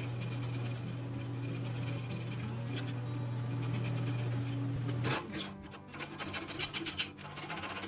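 Rasping and scraping on the toy's tin-plate metal parts, over a steady low hum that cuts off about five seconds in.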